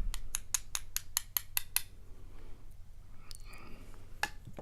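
A quick run of sharp little clicks, about five a second, stopping about two seconds in, then a few scattered clicks: small parts of a pin-tumbler dimple lock being worked as it is taken apart to get at its top pins and springs.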